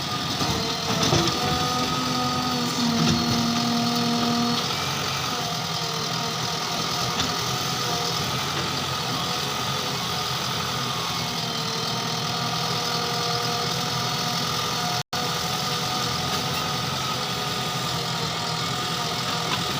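Diesel engine of a JCB 3DX backhoe loader running steadily at work. The sound cuts out for a split second about fifteen seconds in.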